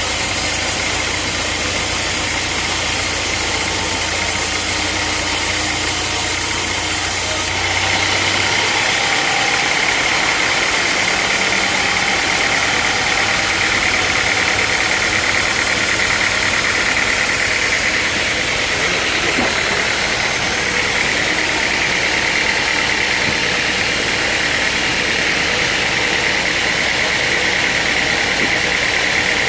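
Sawmill machinery running steadily with a loud, even engine hum. The sound changes abruptly about seven seconds in, and a steady high whine comes in.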